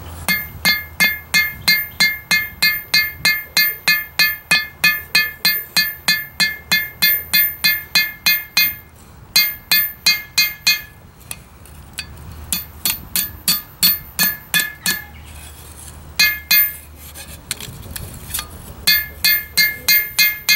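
Hand hammer striking a hot steel knife blade on an anvil, the blows shaping the blade's tip. Steady runs of about three blows a second, each with a bright metallic ring, broken by several short pauses.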